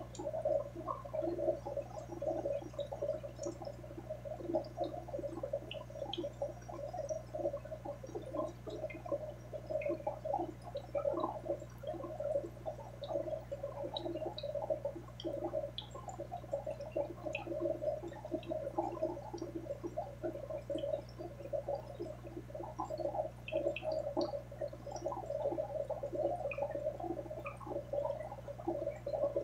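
Aquarium water bubbling and gurgling continuously, with scattered small ticks, over a steady low hum.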